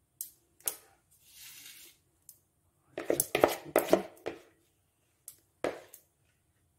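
A metal spoon scraping and knocking against a bowl as thick, wet batter is scooped out of it into a pan: a few separate clicks, a short soft scrape, then a quick run of clinks and knocks about three seconds in, and two more near the end.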